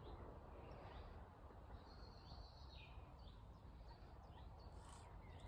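Faint outdoor quiet with a low steady hiss, and a single bird call about two seconds in: a high held note that slides downward at its end.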